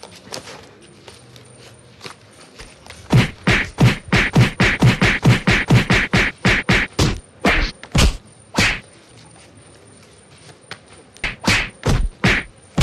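A rapid flurry of whacking hand blows on a person's body, about four a second for some five seconds, then a pause and three more near the end.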